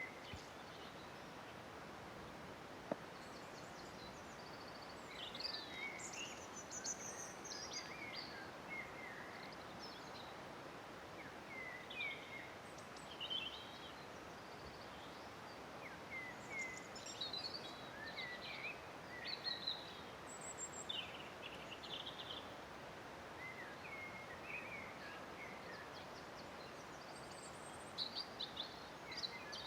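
Many short phrases of wild birdsong chirping over a steady, even rush of falling water, with one sharp click about three seconds in.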